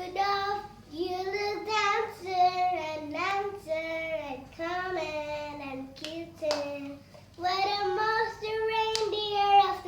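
A young girl singing solo with no accompaniment, holding and sliding between notes. A few sharp clicks cut in about six seconds in and again near nine seconds.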